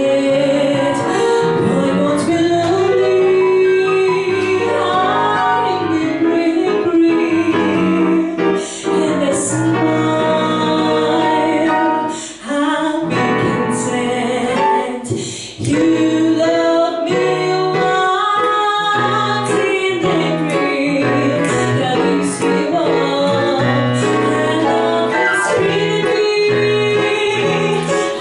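A woman singing a song into a handheld microphone, accompanied by a digital piano, with two short breaks in the phrase about halfway through.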